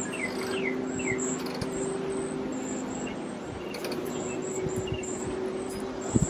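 Outdoor summer ambience. A bird gives a few short falling chirps in the first second or so, insects buzz high and on and off, and a steady low hum runs underneath. A short knock comes right at the end.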